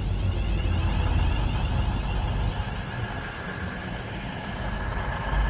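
Avanti West Coast Class 221 Super Voyager's underfloor diesel engines idling at the platform: a steady low rumble.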